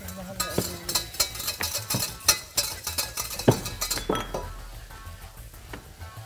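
Metal kitchen utensils clinking and scraping against a stainless-steel pot in quick, irregular strikes, a masher among them; the clinking thins out after about four seconds. Background music plays underneath.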